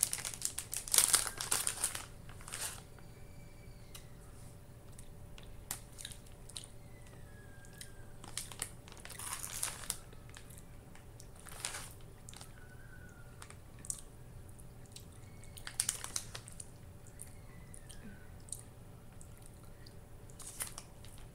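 Plastic bag of vegan mozzarella-style cheese shreds crinkling as it is handled, in a few short bursts, the loudest about a second in. Quiet chewing on a piece of the shreds comes between the bursts.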